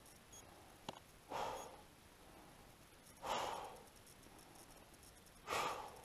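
A man breathing hard, three heavy exhalations about two seconds apart as he catches his breath after trudging through deep snow.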